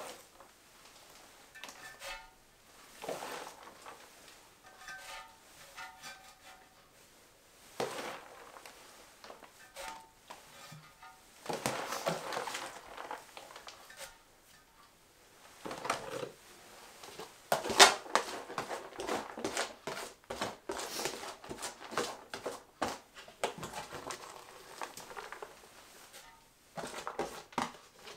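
Handfuls of shredded white cabbage being scooped from a plastic bowl and pressed down into a ceramic fermenting crock, then tipped in from the bowl near the end. The sound is irregular rustling and crunching, coming in bursts.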